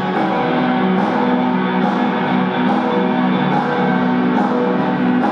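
Band music led by guitar, with sustained chords and a sharp accent about every second.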